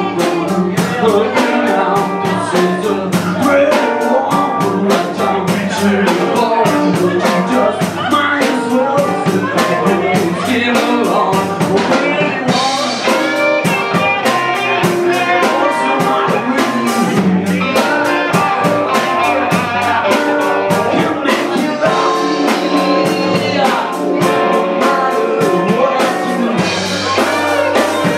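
Live electric blues band playing: electric guitars, drums and keyboard.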